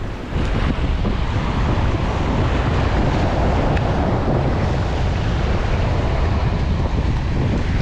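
Wind buffeting the microphone over waves breaking and washing against the rocks of a jetty, a steady rough noise throughout.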